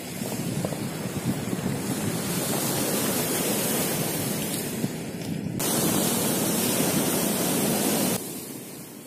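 Sea surf on a pebble beach, with wind buffeting the microphone, loud and steady; the noise drops off sharply about eight seconds in.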